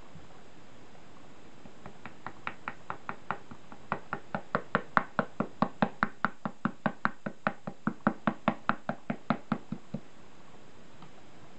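Sumi-e brush dabbed repeatedly against a shikishi painting board to stipple in grass: a run of light taps, sparse at first and then about five a second, stopping near the end.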